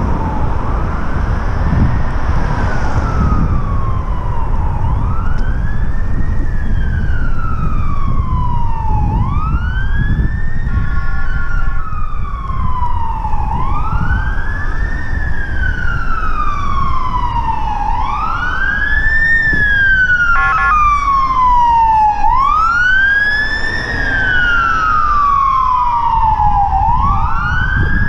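A siren wailing in a steady cycle: each sweep rises quickly and falls slowly, repeating about every four seconds, over the low rumble of wind on the microphone of the moving bicycle.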